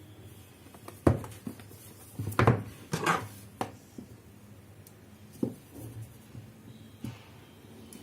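Smartphone box and packaging being handled during unboxing: a series of sharp knocks and taps with some rubbing, the loudest about a second in and again around two and a half to three seconds in.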